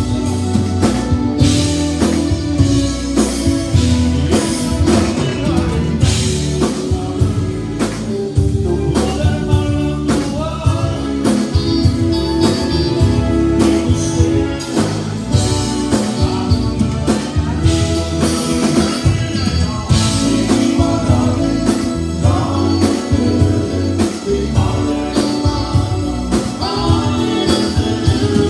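Live Tejano conjunto band playing a song: button accordion, electric guitars, bass and drum kit under a lead vocal sung into the microphone, with a steady beat throughout.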